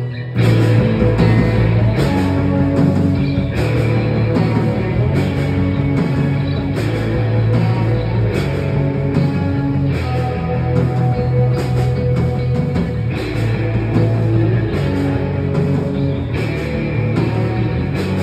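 A live rock band (two electric guitars, bass guitar and drum kit) kicks in at full volume about half a second in, after a quieter held passage, and plays on loud with steady drum hits and cymbals.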